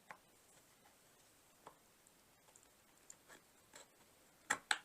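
Scattered light clicks and ticks from the chainsaw's sprocket and clutch drum being turned and handled by hand, with two sharper clicks close together near the end.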